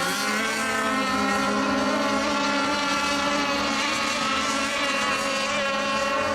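Several radio-controlled racing model boats running together on the last lap. Their overlapping engine tones make a steady high whine that drifts slightly up and down in pitch.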